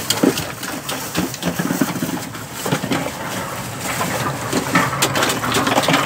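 Ice pick chipping block ice in a cooler: a run of sharp, irregular knocks and cracks, thickest about five seconds in.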